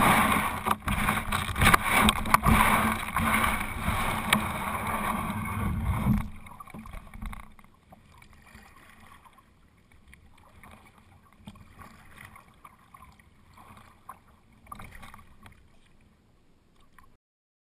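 Kayak and paddle close to a bow-mounted camera: about six seconds of loud rustling and knocking with sharp clicks, as the kayak moves off from the brush along the bank. The sound then drops to faint, regular paddle strokes in calm water, and stops shortly before the end.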